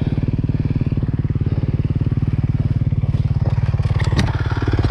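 ATV engine idling steadily with an even, rapid firing pulse, with a few light clicks near the end.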